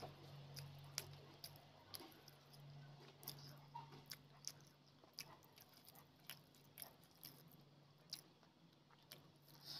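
Faint, wet eating sounds: chewing, and rice being mixed by hand with egg curry gravy, heard as scattered soft clicks and squishes about one or two a second. A low steady hum lies underneath.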